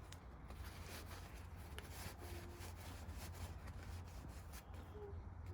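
Faint rubbing of a rag wiping oil off small metal nipple cups from a 6.0 Powerstroke's oil rail, with light scrapes and ticks over a low steady hum.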